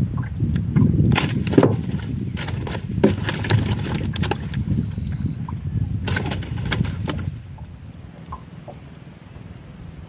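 Irregular knocks and clatter aboard a small fishing boat over a low rumble, which drops away about seven seconds in.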